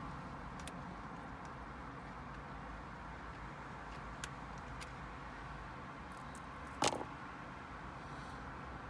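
Steady low background rumble with a few faint clicks and one sharper clack about seven seconds in: small parts and tools being handled while a car stereo's retaining Torx screws are taken out.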